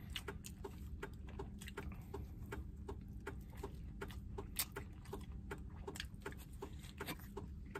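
Close-up eating sounds: a man chewing and gnawing braised chicken (shaoji) off the bone, a run of small irregular clicks and smacks over a low steady hum.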